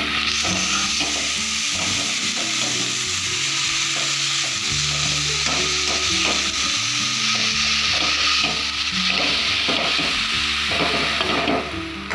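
Water spinach (kalmi shak) sizzling as it is stir-fried in hot oil in a metal kadai, with the metal spatula scraping and knocking against the pan as the greens are turned. The sizzle drops away near the end.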